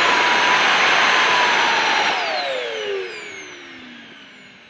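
Model Tornado jet's engine whining, heard from a camera on board; about two seconds in the whine drops steadily in pitch and fades as the engine spools down.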